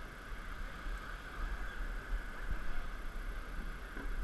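Steady rush of whitewater river rapids, with an uneven low rumble underneath.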